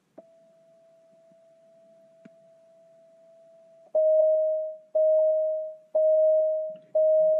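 Car dashboard warning chime. It sounds about once a second from about four seconds in, as the instrument cluster lights up with the ignition on. Each chime is a single loud tone that rings and fades, and a faint steady tone comes before the chimes.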